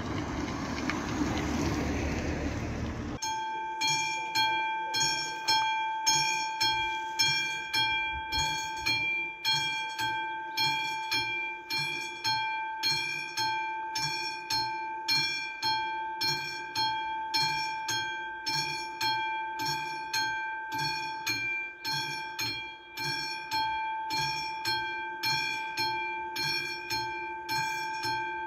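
A car drives across the crossing. About three seconds in, the classic mechanical bell of an AŽD 71 level-crossing warning signal starts ringing, struck in a steady rhythm a little faster than once a second, each strike ringing on; it is warning that a train is approaching.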